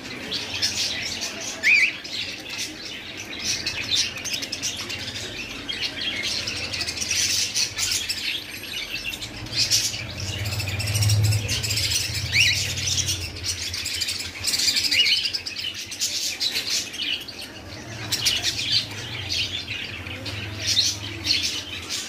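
A flock of caged budgerigars chattering without pause: a dense mix of short, high warbles and sharp chirps.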